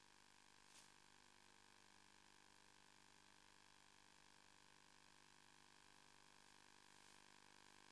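Near silence: a faint steady electrical hiss and hum, with one brief click about a second in.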